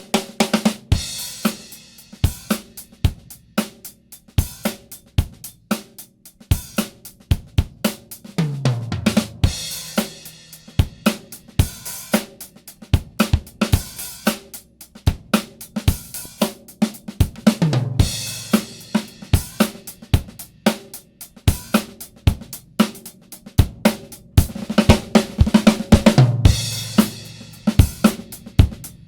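Recorded drum kit groove (kick, snare, hi-hats and cymbals) with a tom fill falling in pitch about every nine seconds, played through the MOTHER VIVID three-band EQ for a demo of its sound.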